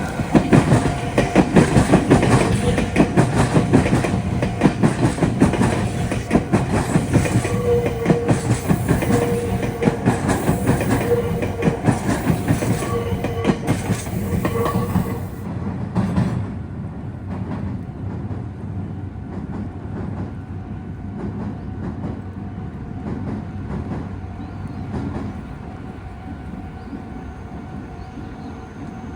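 A Meitetsu electric train passing over junction points and crossings, its wheels clattering loudly and rapidly over the rail joints for about sixteen seconds. It then drops to a quieter rumble as the train moves away. A level-crossing warning bell rings steadily throughout.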